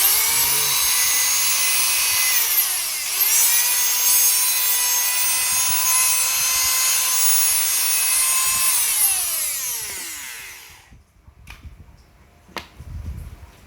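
A corded 220 V Makita power tool's electric motor running with no load, giving a steady high-pitched whine. About three seconds in, the pitch dips briefly and spins back up, as when the switch is let go and pressed again. Near the end the motor is switched off and winds down to a stop.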